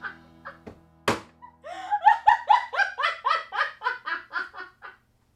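A woman laughing hard in rapid, evenly repeated ha-ha bursts that stop abruptly near the end, over faint background music. A single sharp click comes about a second in.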